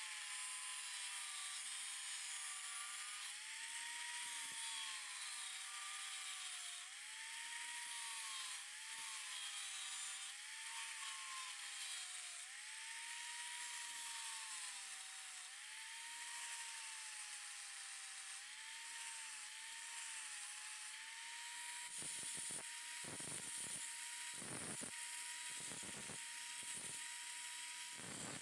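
Electric angle grinder running, its whine dipping in pitch again and again as the disc is pressed into bamboo to grind it. Over the last several seconds the whine holds steady while short bursts of rougher noise come and go.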